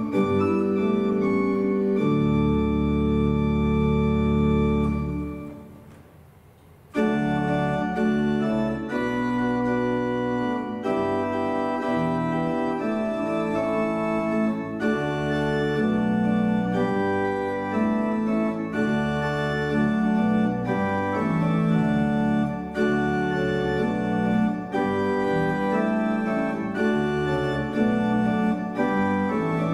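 Church pipe organ playing held chords; about five seconds in the sound fades away, and after a short gap the playing resumes with chords that change every second or so.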